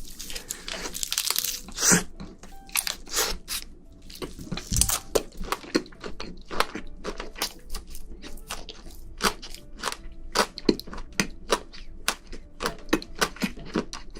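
Close-miked crunching and crackling of a king black tiger prawn being eaten: irregular sharp crunches, a few a second, loudest about two seconds in.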